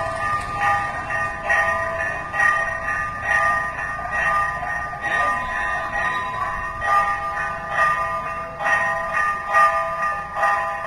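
Temple bells at the gate tower ringing continuously, struck over and over about twice a second so that their overlapping tones keep sounding.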